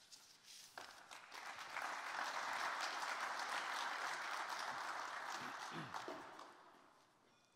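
Audience applauding in a large hall, building up about a second in and dying away near the end.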